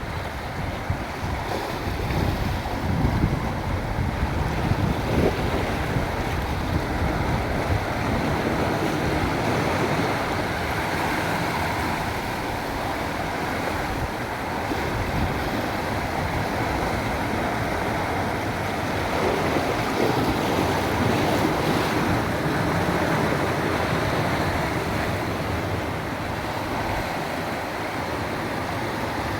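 Sea waves washing in and out, a steady surf noise that swells a little past the middle. Wind buffets the microphone with low rumbles, mostly in the first several seconds.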